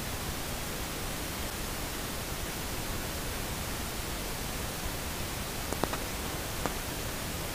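Steady hiss of recording background noise, with a few faint short clicks near the end.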